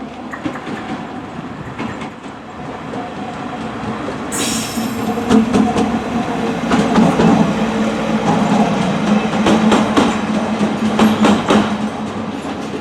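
Diesel train passing close by, its engine drone building up and then holding steady. A hiss starts suddenly about four seconds in, and the wheels click over the rail joints in a quick run of clacks in the second half.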